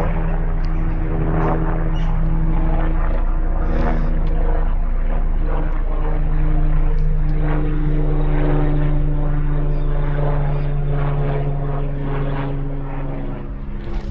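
A steady engine drone: a loud low hum with overtones whose pitch shifts slightly a few times.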